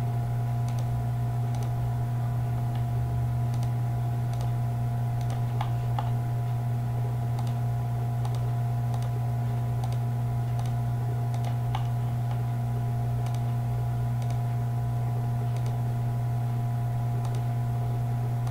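Computer mouse clicking about once a second, light clicks placing points, over a steady low electrical hum that is the loudest sound throughout.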